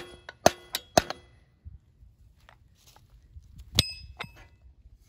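Sharp metal clangs that ring briefly, from steel striking steel on a go-kart's front wheel and spindle. Four come in quick succession in the first second and two more about four seconds in.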